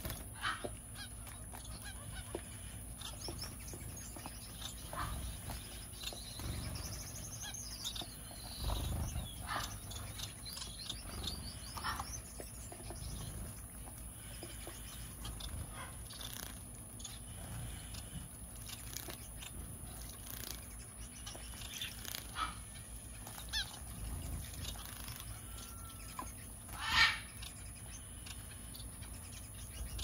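A mixed flock of aviary finches and small parakeets calling: scattered short chirps and nasal calls, with one louder call near the end.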